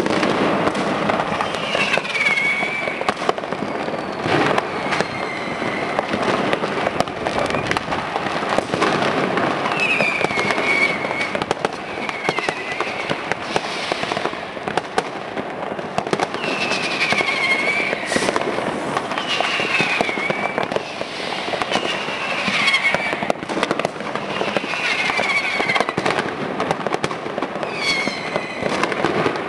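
Dense, continuous crackling and banging of many firecrackers and fireworks going off at once. Short whistles that fall in pitch sound over it every few seconds.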